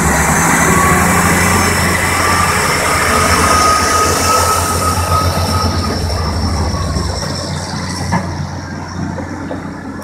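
Off-highway log truck's heavy diesel engine running as the empty truck pulls away on a gravel road, with a high squeal that rises slightly in pitch through the first half. The low pulsing engine rumble drops away about seven seconds in, and the sound fades as the truck moves off.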